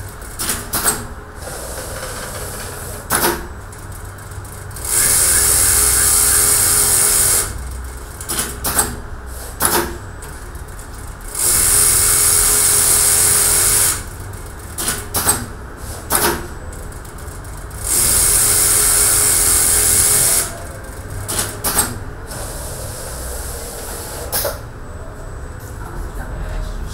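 JOOKE computer-controlled pattern sewing machine stitching pocket flaps held in a template. It runs in three loud, high-pitched bursts of about two seconds each, with quieter stretches of clicks and knocks between them.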